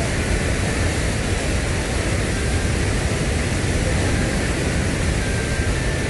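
Steady roar of a wide waterfall and churning rapids at high water: a dense, even rushing noise, heaviest in the low end.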